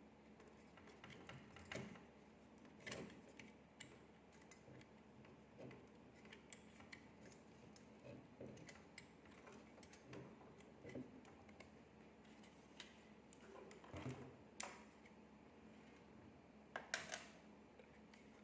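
Faint, irregular clicks and light taps of small parts and tools being handled while a graphics card is taken apart by hand, with a few louder knocks in the second half.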